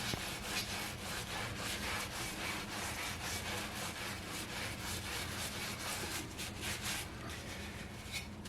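An SOS steel-wool soap pad scrubbing the outside of a cast iron kettle in quick, repeated back-and-forth strokes, rubbing off paint loosened in an electrolysis bath.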